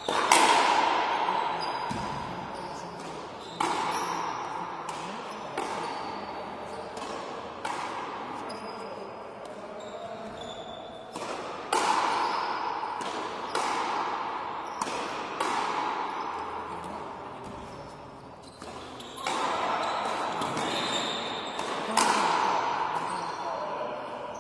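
Frontenis rallies: a rubber ball struck by strung rackets and smacking off the front wall, each hit ringing on in a large echoing hall. The sharp hits come a second or two apart, with a couple of short lulls between rallies.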